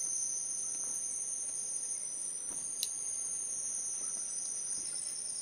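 Steady high-pitched insect chorus, a continuous drone held at two pitches, one above the other, with a single short click a little past the middle.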